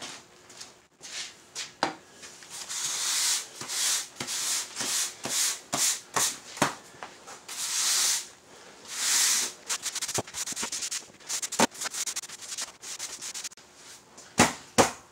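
A push broom sweeping a concrete garage floor in repeated long scraping strokes, followed by scattered clicks and two sharp knocks near the end.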